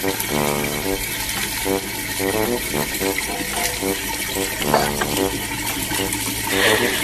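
Water running from an outdoor wall tap in a thin stream, under a voice that holds notes and moves in steps like a tune.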